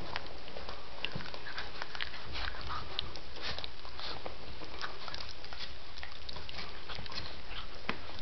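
Five-week-old Rhodesian Ridgeback puppies mouthing, chewing and sniffing at a person's hand, a steady run of small wet clicks and snuffles.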